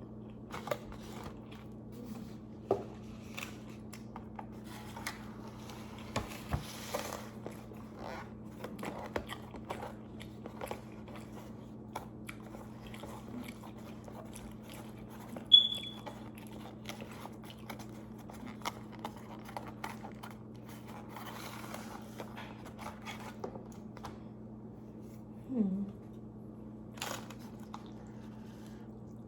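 A person eating close to the microphone: scattered small clicks of biting and chewing, over a steady low hum. A short, high chirp about halfway through is the loudest sound.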